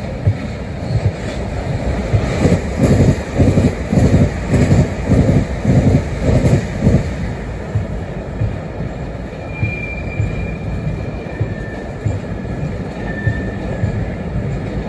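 Freight train of loaded car-carrier wagons rolling past, its wheels clattering over rail joints in quick runs of beats between about two and seven seconds in, over a steady rumble. Brief high wheel squeals come in the second half.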